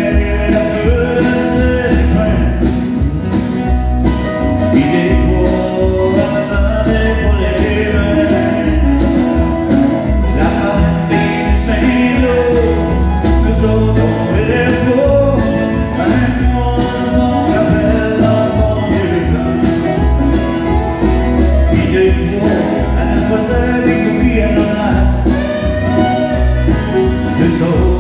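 Live country band playing: a man sings over strummed acoustic guitar, with fiddle and other guitars.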